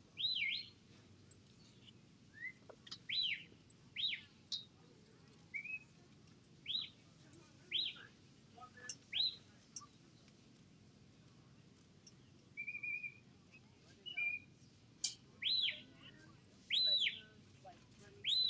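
A sheepdog handler's whistle commands to a working herding dog: a series of short whistled notes, each rising and falling, about a second apart, with a longer warbling whistle around the middle.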